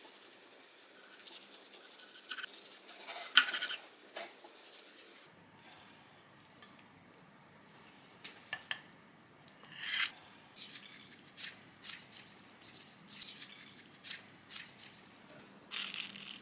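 Kitchen knife cutting through a kimchi-wrapped kimbap roll on a wooden cutting board, a soft rasping with a few sharp knocks of the blade. Later, a run of short sharp clicks and taps as the slices are lifted with the knife onto a plate.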